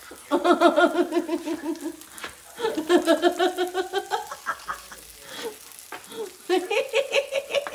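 A person laughing hard in three bouts, each a run of quick, high-pitched pulses, the middle one rising in pitch.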